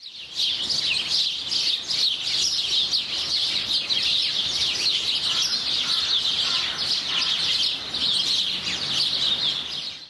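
A flock of small songbirds chirping and twittering together in a dense, continuous chorus of quick high chirps that cuts off abruptly at the end.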